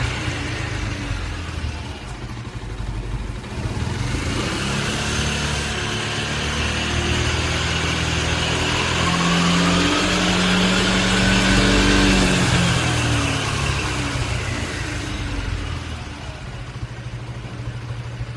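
Yamaha FORCE 155 scooter's engine running, its speed rising to a peak about two-thirds of the way in and then falling away, with a whine that climbs and drops along with it. This is the odd noise the owner was told is normal on every unit.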